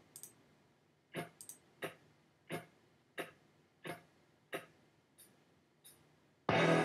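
Intro music track: a sparse, even ticking beat, about one and a half ticks a second, then the full music comes in loudly near the end.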